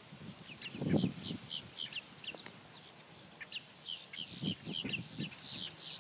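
Birds chirping in many short, quick, high notes. A lower, muffled burst about a second in is the loudest sound, with a few more soft low sounds past the middle.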